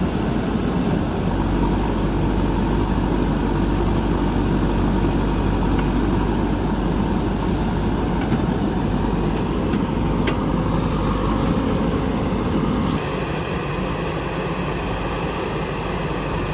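Heavy machinery diesel engines running steadily. About thirteen seconds in, the engine note changes suddenly: the deep rumble drops and a higher steady tone comes in.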